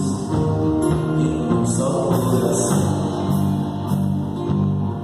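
Live worship band playing a song, with sustained held notes and chords.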